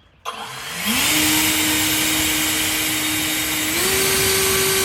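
Electric air blower switched on to blow a bird out of a corner: its motor whine rises to a steady pitch with a rush of air, then steps up higher shortly before the end.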